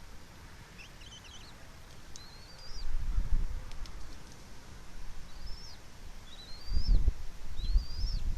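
Bald eagle eaglets peeping in the nest: several short, high chirps that rise and then drop, heard singly or in quick pairs. Under them is a faint steady hiss, and twice there are louder low rumbles on the microphone.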